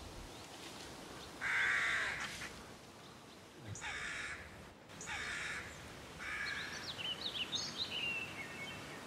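A crow cawing three times, harsh calls a couple of seconds apart, followed near the end by quick high chirps of a small bird.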